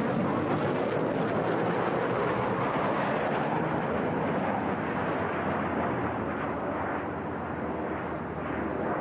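HAL Tejas fighter's single General Electric F404 turbofan jet engine running loud in flight during rolls, its sound slowly fading and losing its higher hiss as the jet moves off down the runway.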